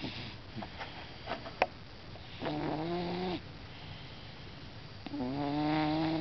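Domestic cat snoring in its sleep: two drawn-out, pitched snores about three seconds apart, each lasting about a second.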